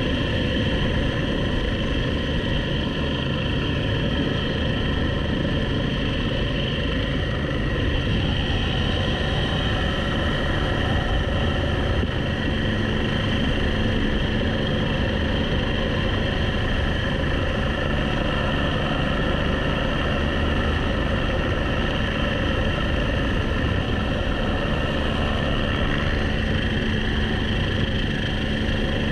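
Helicopter turbine engine and rotor running steadily, heard from just outside the open cabin door: a low rumble under several steady high whining tones.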